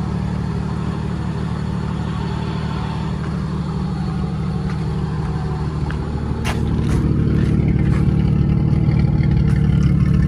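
Jeep Cherokee engine idling steadily, growing louder about six and a half seconds in, with a few sharp clicks at the same point.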